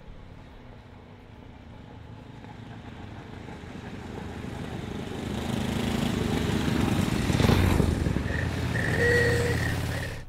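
A motorcycle engine approaching and passing close, growing louder over several seconds to a peak about three-quarters of the way in, with a brief steady high tone near the end.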